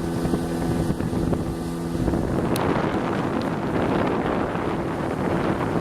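Hidea 9.9 outboard motor running steadily under way during its break-in. Its steady engine tone fades about two seconds in, and a rushing noise of wind on the microphone and water takes over.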